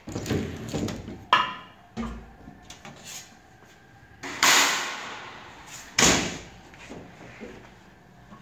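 Screen-printing press in use for printing on sheet-metal signs: a squeegee scraping ink across the mesh screen, then sharp clacks and knocks from the hinged press frame and metal sheets being handled. The two loudest knocks come about four and six seconds in, with a smaller ringing click a little after one second.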